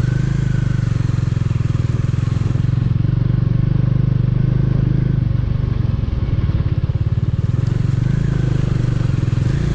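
Motorcycle engine running at steady low revs with an even pulsing beat, heard from the rider's seat while riding a rough gravel track.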